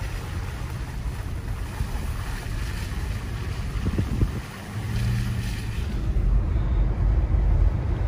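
Road noise from a moving Subaru on a wet, slushy snow-covered road: a steady low rumble of tyres and engine with wind rushing through the open windows, getting louder over the last couple of seconds.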